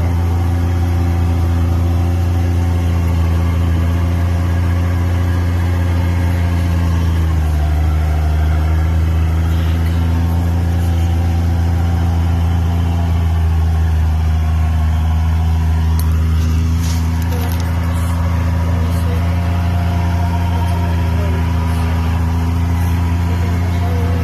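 Nissan Safari 4WD's engine running steadily at low revs, its pitch shifting slightly a couple of times, with a few clicks about two-thirds of the way through.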